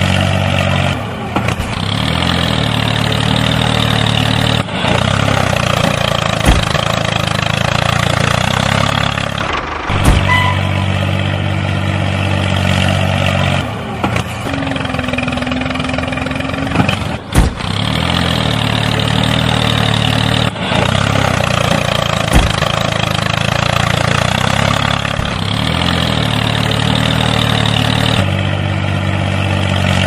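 Engine idling steadily, with short breaks every few seconds where the sound cuts off and picks up again.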